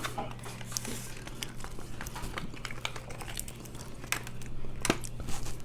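Eating and food-handling noises at a meal of mussels and chicken: scattered sharp clicks and crinkling, with a steady low hum underneath.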